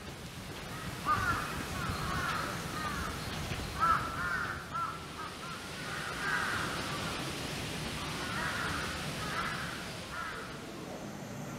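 Birds calling: short arching calls in small groups, repeated every second or two.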